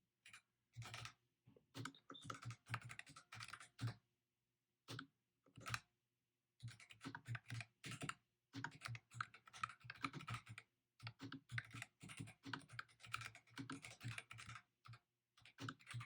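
Typing on a ProtoArt MECH K301 mechanical keyboard: quick runs of quiet key clicks in bursts, with short pauses between words.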